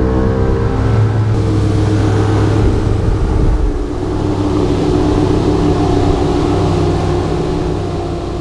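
Evinrude 250 two-stroke outboard motor running a bass boat at speed, its pitch climbing a little at the start and then holding steady, with the rush of wind and water from the hull and spray.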